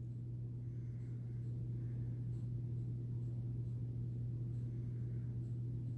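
Steady low hum with faint background hiss: quiet room tone, no speech.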